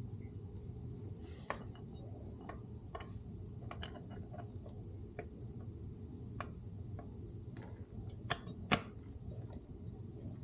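Irregular light metallic clicks and taps as a motorcycle's shifter link arm is worked by hand onto its mount, the part not seating all the way; the sharpest tap comes near the end, over a low steady hum.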